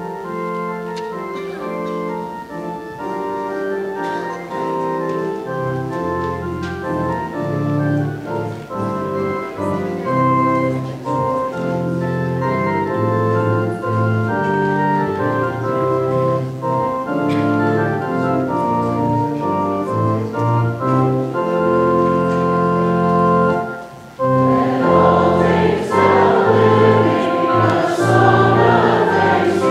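Church organ playing a hymn in held chords. About 24 seconds in, after a brief break, a congregation of many voices begins singing the hymn along with the organ.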